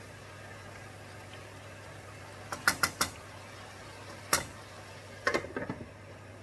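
A wooden spatula knocking sharply against a nonstick frying pan, four quick knocks and then one more. A metal-rimmed glass lid then clatters as it is set down on the pan. A steady low hum lies underneath.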